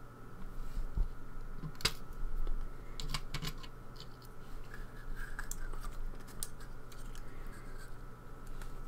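Tweezers and small metal lock parts clicking and tapping on a desk as the springs are pulled out of a pin-tumbler lock: scattered sharp clicks, the loudest about two seconds in.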